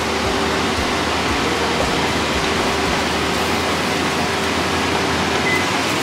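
Kitchen cooker hood extractor fan running, a steady rushing noise with a faint steady hum, while pans steam on the hob.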